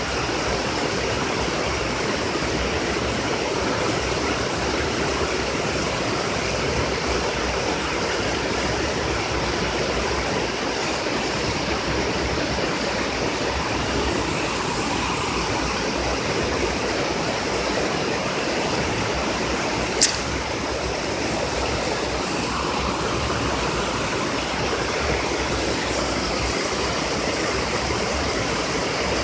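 Steady rushing of river water spilling over a low-water bridge, with one sharp click about two-thirds of the way through.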